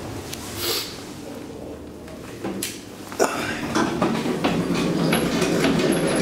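Camera handling noise: a sharp click about three seconds in, then steady rubbing and rustling as the camera is moved about.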